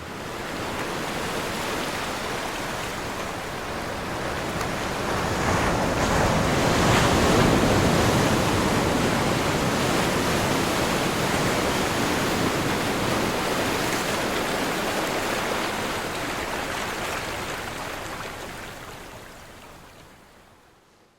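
Ocean surf breaking and washing on a shore: a steady rushing wash that swells to its loudest about seven seconds in, then slowly dies away near the end.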